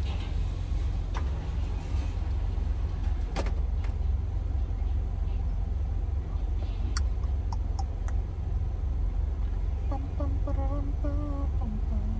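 Car idling, heard from inside the cabin as a steady low rumble, with a few sharp clicks and knocks. A faint voice comes in near the end.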